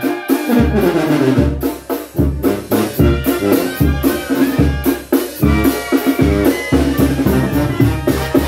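A Mexican banda playing a corrido. Trumpets and clarinets carry the melody over a tambora bass drum with a cymbal mounted on it, which beats out a steady low rhythm.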